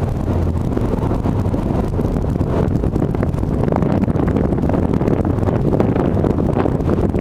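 A fast ferry under way at cruising speed: a steady engine hum and water rushing past, with wind gusting on the microphone.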